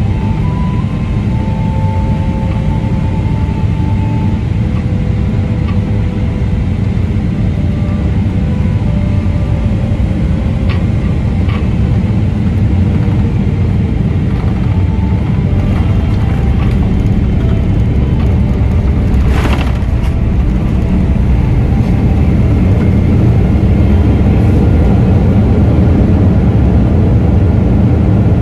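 Boeing 777-300ER cabin noise from a seat beside its GE90 engine during landing: a loud, steady low rumble, with a short thud about two-thirds of the way in as the wheels touch down, after which the rumble grows a little louder on the rollout.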